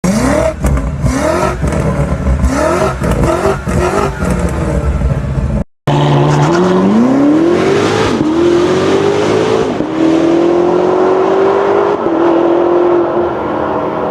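BMW M5 exhaust under hard acceleration. First come several short revs, each quickly rising in pitch; after a brief cut there is one long pull through the gears, rising steadily and dropping at each upshift, twice.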